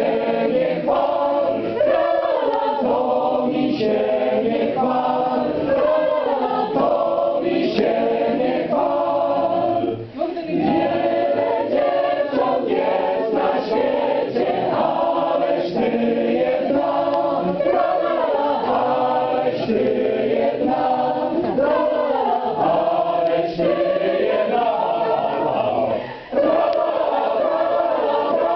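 Choir singing a song, with brief pauses for breath about ten seconds in and again near the end.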